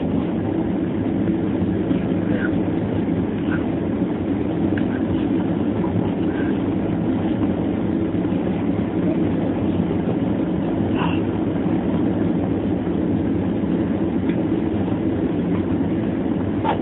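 Steady rumbling noise of a jet airliner's engines and rushing air, heard inside the passenger cabin during the descent to land.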